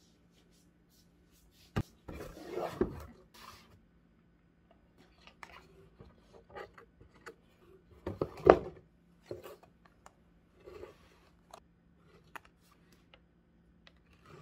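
Cardboard box being opened and rummaged through: flaps scraping and bending, rustling of items inside, and scattered knocks, the loudest about eight and a half seconds in.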